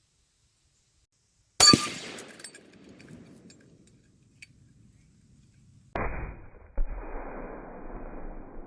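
A loud gunshot with metallic ringing fading after it. About four seconds later comes another shot, then a duller Tannerite blast from downrange nearly a second behind it, with a long rumbling echo that carries on.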